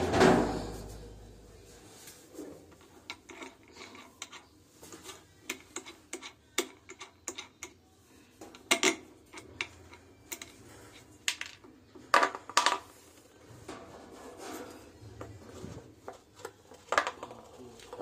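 Hand-tool and parts handling during electrical repair work: a thump at the start, then irregular clicks, clinks and knocks of small hard objects, a few of them louder, two close together about two-thirds of the way through.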